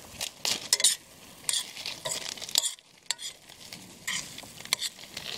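Eggs frying in a pan while a utensil stirs and scrapes them in short, irregular strokes, over a light sizzle.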